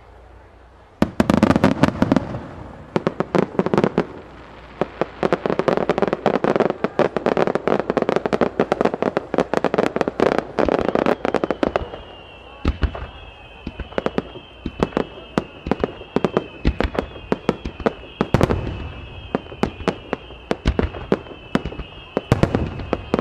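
Beniya Aoki starmine fireworks barrage: after a quiet first second, a dense rapid volley of bangs and crackling stars. From about halfway a high wavering whistle runs over continued bursts.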